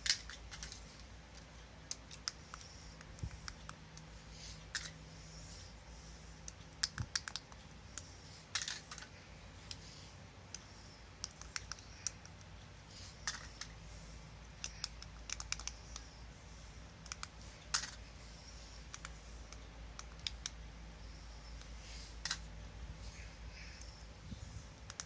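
Irregular small plastic clicks and taps from Bluetooth camera shutter remotes being handled and their on/off switches flicked one after another, over a faint low hum.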